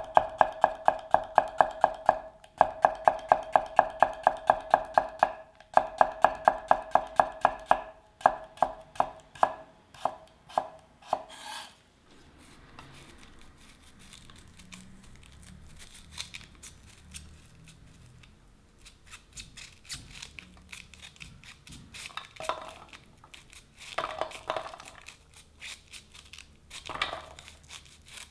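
A kitchen knife chopping cucumber into thin slices on a ginkgo-wood cutting board, in quick even knocks about five a second with two short breaks, slowing before it stops about eleven seconds in. Then comes quieter scraping and crackling as a knife cuts kernels off an ear of corn, with a few louder bursts near the end.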